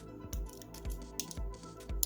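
Background music with a steady beat, about two beats a second, with sharp clicks over it.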